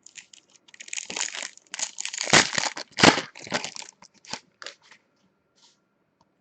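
Foil trading-card pack being torn open and its wrapper crinkled, a run of crackling rustles that is loudest about two to three seconds in.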